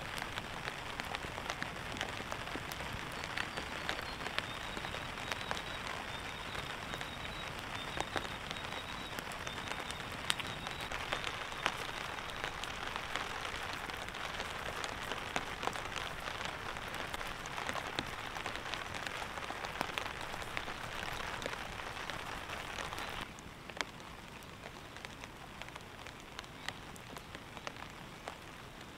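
Steady rain pattering on a tarp, with many single drops ticking through the hiss. The sound suddenly gets quieter about 23 seconds in.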